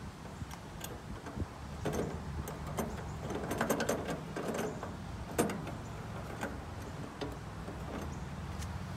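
Metal clinks and rattles of steel burner tubes and a bracket rail being handled inside a gas grill's firebox, busiest around the middle, with one sharp clink about five and a half seconds in. A steady low hum runs underneath.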